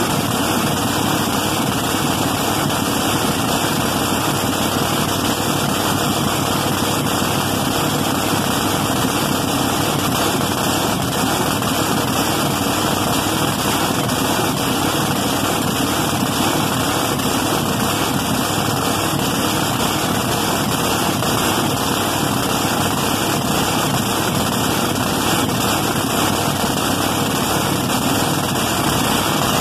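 Supercharged V8 engine of a mini modified pulling tractor, running at a steady idle through short open headers on its first fire-up. The sound is loud and even, with no revving.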